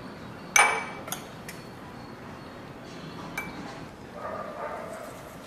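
Spoon clinking against a small glass jar as chutney is scooped in: one loud ringing clink about half a second in, then a few lighter taps.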